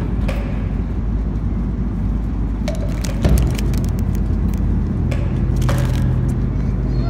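Steady low drone of an Airbus A330 airliner's cabin in flight, with a few short bursts of crinkling as a foil ice-cream wrapper is handled, around the middle and again a little later.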